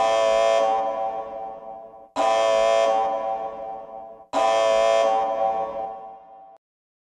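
Outro music: three held chords struck about two seconds apart, each fading away, the last one cut off suddenly.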